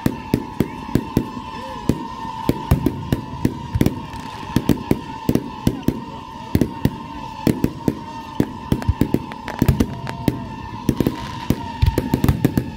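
Fireworks going off in rapid succession: sharp bangs and crackles several times a second, with a steady high-pitched tone holding underneath.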